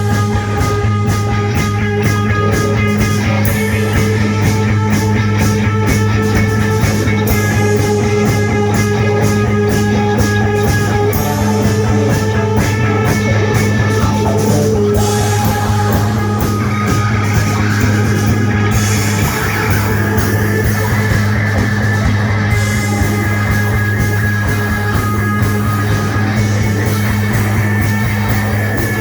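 Rock band playing live: electric guitar lines over a driving drum kit and a steady low bass drone.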